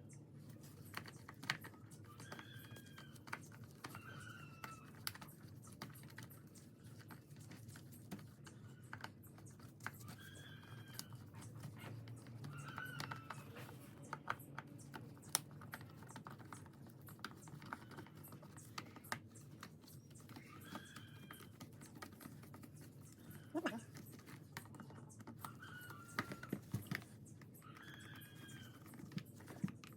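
Irregular small clicks and taps of hand tools and metal parts being handled while a rotary hammer drill is taken apart. Short bird calls recur every few seconds in the background over a steady low hum.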